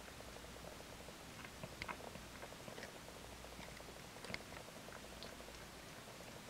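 Faint, scattered wet clicks and smacks of a mother tabby cat licking and chewing at her newborn kitten during the birth.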